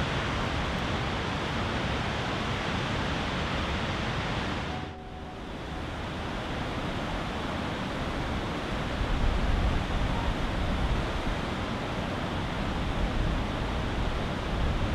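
Steady rushing of a waterfall and fast river water in a narrow rocky gorge, an even noise with no distinct events, briefly quieter about five seconds in.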